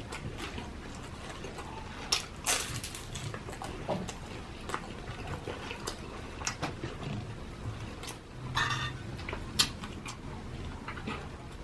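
Close-miked eating: chewing and crunching crispy lechon sisig, with irregular sharp clicks of utensils against a plate. A denser crunchy stretch comes about eight and a half seconds in.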